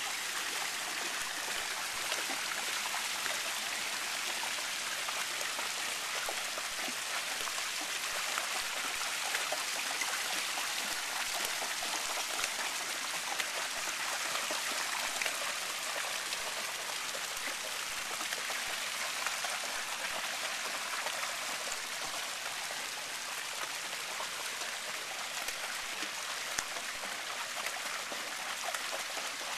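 Steady rush of fountain water spilling into a shallow pool, with small scattered splashes from a dog wading through the water.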